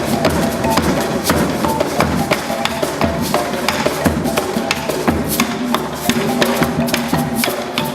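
Ritual hand-percussion music: a dense, fast run of drum beats and sharp wooden knocks over a few held tones.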